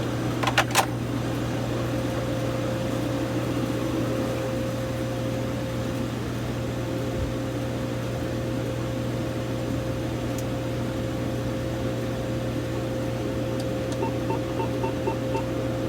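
Steady low electrical hum with a faint steady tone above it. There are a couple of clicks about half a second in, and a run of about six short, evenly spaced electronic beeps near the end.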